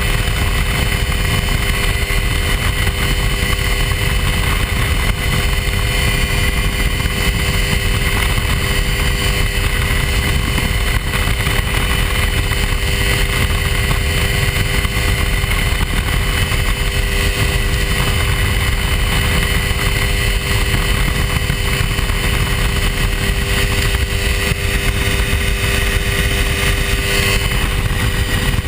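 Hy-Tek Hurricane ultralight airplane's engine running steadily at constant power, with a continuous low rushing noise underneath.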